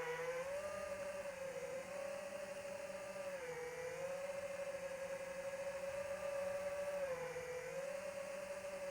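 Electric motor and propeller of an AtomRC Dolphin FPV plane whining steadily in flight. The pitch dips briefly and comes back up about four times.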